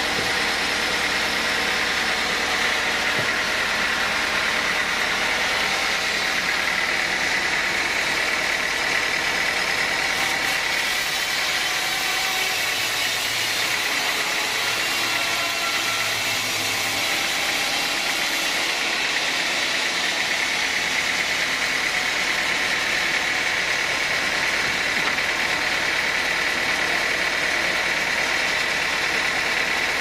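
Band sawmill running and cutting through a teak log: a steady machine noise with an even high whine from the blade in the wood.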